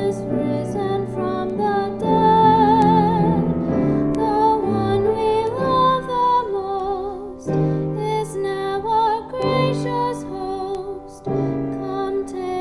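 A woman singing solo, holding long notes with vibrato, over piano accompaniment.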